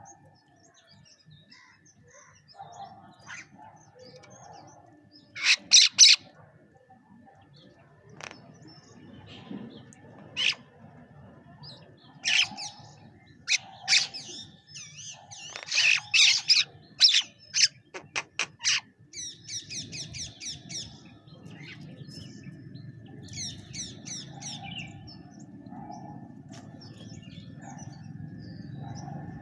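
Bank mynas calling, a string of loud harsh squawks and chatter with quicker trilled runs later on.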